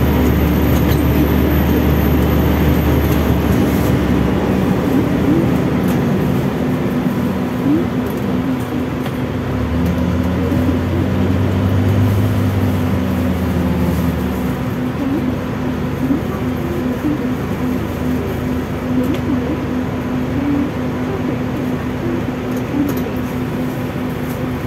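Scania K310UD double-decker bus with loud air-conditioning blowing and humming steadily. Under it, the Scania DC9 five-cylinder diesel drones low: it fades a few seconds in, swells again with a slight rise in pitch for about five seconds around the middle, then drops back.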